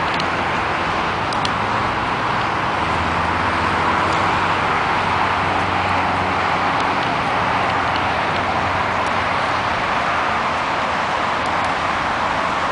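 Steady freeway traffic: tyres and engines of many cars blending into one continuous hiss, with a faint low engine hum joining about three seconds in.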